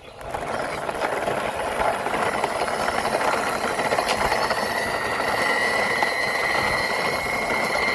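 Plastic toy dump truck's wheels rolling along rough concrete as it is pushed by hand, a steady grinding rattle. A thin high squeal joins about halfway through.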